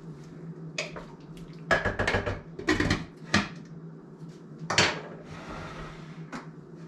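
A spoon knocking and scraping against a slow cooker's crock while vegetables are stirred in: a series of separate clinks and knocks, then the lid set back on the pot.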